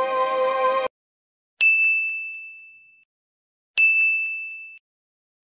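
Intro music ends abruptly under a second in. It is followed by a notification-bell sound effect: a bright single-pitched ding, struck twice with dead silence between, each dying away, the second cut short.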